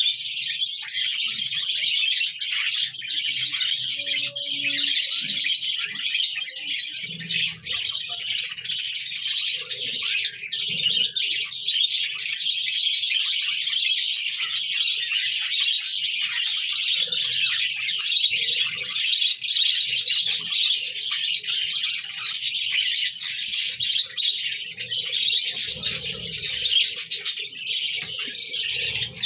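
A flock of budgerigars chattering: a dense, unbroken mass of high chirps and warbles.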